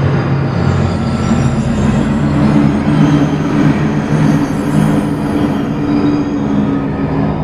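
Steady electronic drone sound effect: sustained low tones under a rumbling haze, with thin squealing high tones above, much like a train's rumble and wheel squeal.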